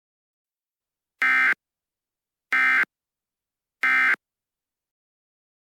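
Emergency Alert System end-of-message data signal: three short, identical buzzing digital bursts about 1.3 seconds apart, the SAME 'NNNN' code that closes an alert.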